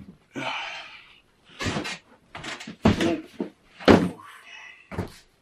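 Cardboard box being handled on a desk: a scraping, rustling slide, then several knocks and thumps as it is moved and set down.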